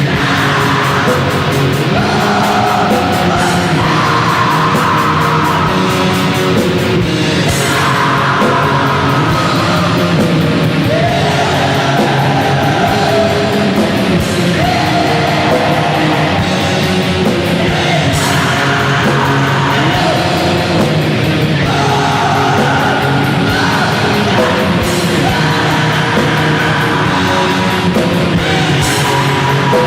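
Depressive black metal music playing loudly and without a break: dense, heavy guitar-driven sound with a harsh vocal line rising over it at times.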